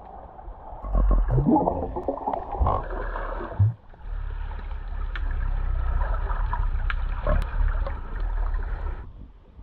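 Muffled water sloshing and gurgling as picked up by a camera submerged underwater, with a steady low rumble and scattered faint clicks. It dips briefly about four seconds in and falls away near the end.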